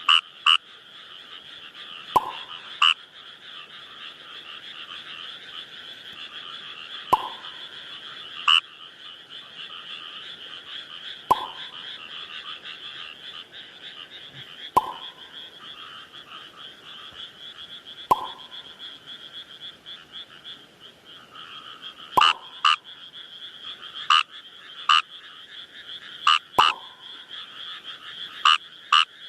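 Numagaeru rice frogs (Fejervarya kawamurai) calling: loud short calls every few seconds, often in pairs, over a continuous dense background chorus.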